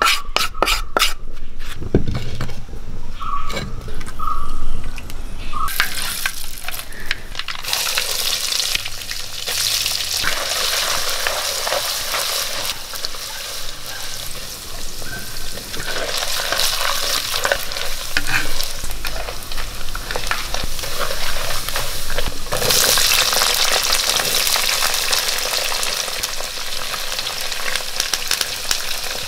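Coconut pieces sizzling in hot oil in a clay pot, stirred and scraped with a spatula. A few scraping clicks come first as spice powder is scraped out of a metal pan. About 22 seconds in the sizzle grows louder as chopped shallots go into the oil.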